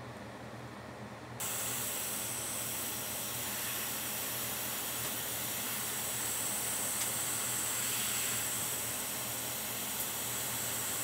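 Hot air rework station switched on about a second and a half in, then blowing a steady hiss of hot air over a logic board to reflow corroded capacitors.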